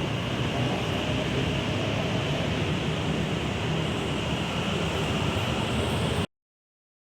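Steady rumble and hiss of a moving vehicle or road traffic, even in level throughout, cutting off abruptly about six seconds in.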